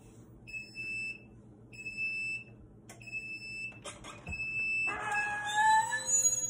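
Heat press timer beeping four times, about a second apart, to signal the end of the press cycle. Near the end the press lid is released and swung open with a louder pitched squeal of several tones that slide slightly in pitch.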